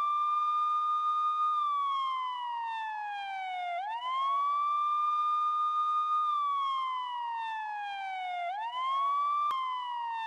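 Emergency vehicle siren wailing: the pitch rises quickly, holds for a moment, then slides slowly down, repeating about every four and a half seconds. A single sharp click near the end.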